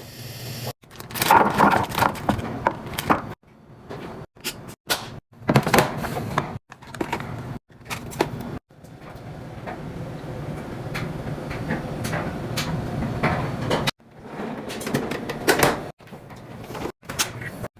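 Fridge restocking: clicks, knocks and rustling of containers and packaging being handled and set in place, in short clips cut together, with a longer, steadier stretch of noise in the middle.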